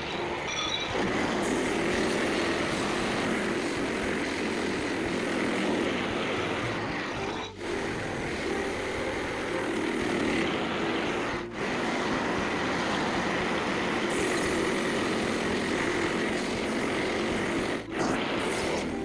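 Frontier OS27 portable band sawmill running steadily, with three brief dropouts.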